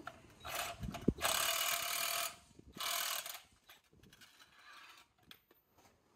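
Cordless drill running in three short bursts, spinning the lead screw of a scissor jack: a brief whir about half a second in, a longer one of about a second, and another short one around three seconds in, followed by a few faint ticks.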